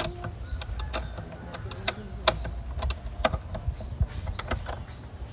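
Irregular sharp clicks and small metallic taps from hand work on bolts and fittings at the throttle body of a car engine, over a steady low hum. The loudest clicks come about two and three seconds in.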